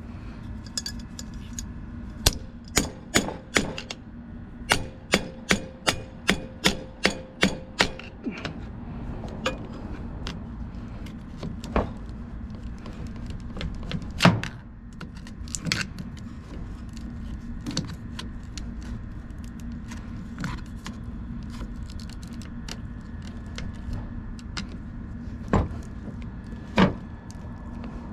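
Hammer blows on metal parts of a Copeland semi-hermetic compressor being torn down: a few strikes, then a steady run of about eight sharp blows at two to three a second, followed by scattered single knocks and clanks.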